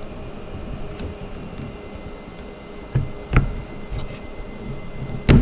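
Plastic retainer clip being pushed onto a doll stroller's metal wheel axle by hand: a few light clicks and knocks about three seconds in, then a sharper click near the end as the clip snaps into place.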